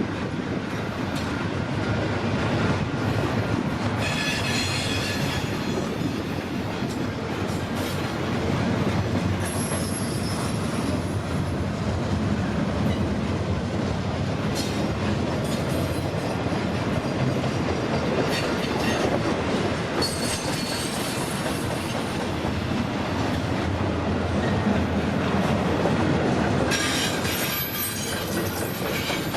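CPKC freight train's cars rolling steadily past on the rails, a continuous rumble and clatter of wheels. High-pitched wheel squeal comes and goes several times.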